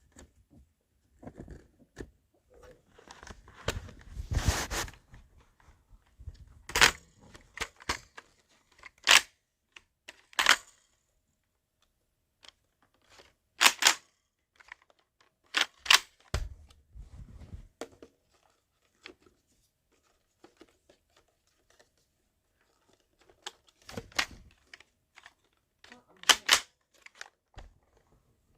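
Irregular handling noises: short rustles, tearing sounds and sharp clicks at uneven intervals, with quiet gaps between.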